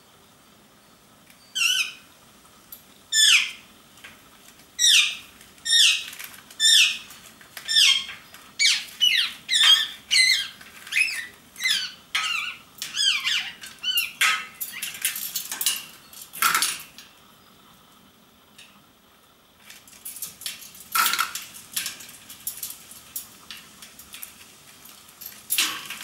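Indian ringneck parakeets calling: shrill short calls, each a quick falling sweep, about one a second at first. They then come faster and more ragged, with harsher bursts, and after a pause a few more calls follow.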